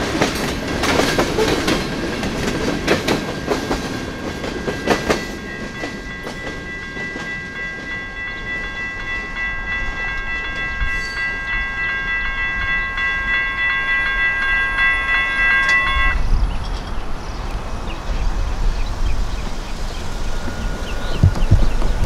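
Freight car wheels clatter over the crossing rails for the first few seconds. The crossing's electronic bells, an old GS Type 1 e-bell paired with a high-pitched Safetran Type 3 e-bell, then ring steadily and cut off about sixteen seconds in, as the gates go up. A low wind rumble on the microphone follows.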